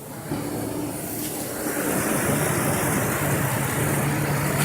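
Dodge Viper RT/10's V10 engine starting about a quarter second in and running steadily, growing louder over the first two seconds. It is a cold start on a car whose alarm the owner suspects of cutting the engine off.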